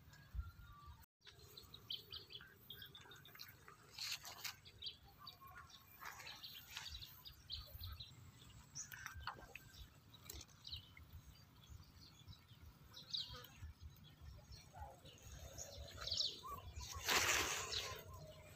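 Faint outdoor ambience: scattered short bird chirps over a low rumble, with a brief noisy burst near the end.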